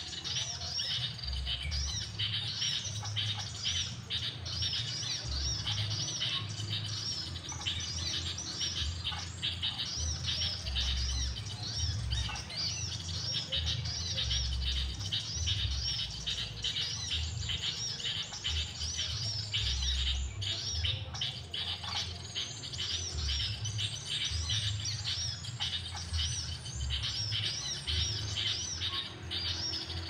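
Small birds chirping rapidly and without pause, a lure recording of bird calls played from an MP3 player to draw wild birds down to the trap. A low, uneven rumble of wind on the microphone runs underneath.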